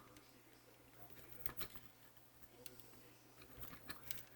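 Faint, scattered clicks and taps of small model parts being handled and fitted by hand, over a low steady hum.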